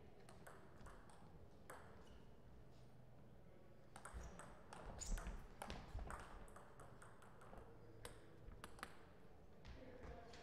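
Table tennis rally: the ball clicking off the bats and the table, faint. A few scattered clicks come first, then a quick run of sharp clicks from about four to nine seconds in, with some low thuds underneath.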